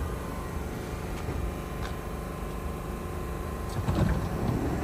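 Subway train standing at a station platform just after arriving, its equipment humming steadily, with a few faint clicks and a louder low rumble about four seconds in.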